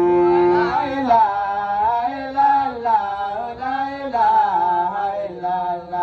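A man chanting a Hausa madahu (praise song for the Prophet) solo, holding a long note at first and then bending the melody in slow, ornamented phrases.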